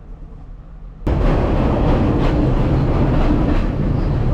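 Passenger train running, the wheels clattering over the rails with irregular clicks, heard from inside the carriage. The noise becomes suddenly much louder about a second in.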